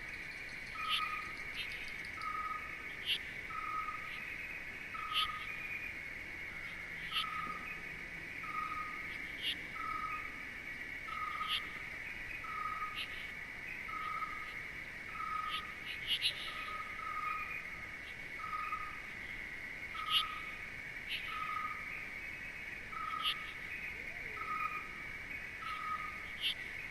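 Night-time nature ambience: a steady high trill of crickets or other insects, with an animal's short piping note repeating about once a second and brief high chirps scattered over it.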